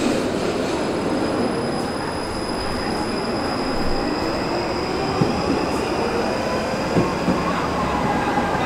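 Stuttgart Stadtbahn (U-Bahn) light-rail train running into an underground station platform. Its steady rumble carries a thin, high, steady wheel squeal.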